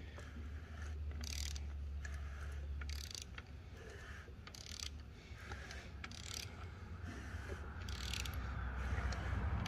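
Rotating assembly of a 387 stroker short block being turned over slowly by hand with a wrench on the crankshaft: a quiet mechanical sound with sharp clicks every second or so as the tool is worked and the crank, rods and pistons go round.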